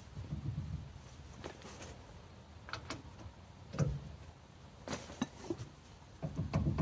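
Scattered metallic clicks and knocks of a hand-held socket on the rear hub nut of a Fiat Ducato drum brake, with a low rubbing rumble as the brake drum is turned and rocked by hand near the start and again near the end, while the wheel bearing play is checked and adjusted.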